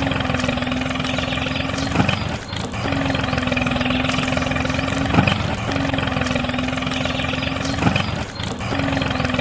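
A motor running steadily with a held humming tone, broken by a sharp click about every three seconds.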